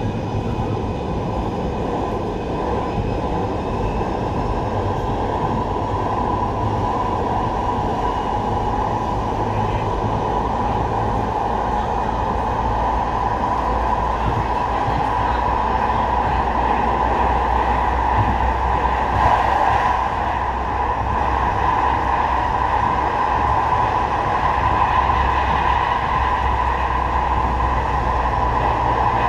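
Interior sound of a Manchester Metrolink M5000 tram running along the track: a steady rumble of wheels on rail under a continuous electric motor whine that grows slightly louder as it goes.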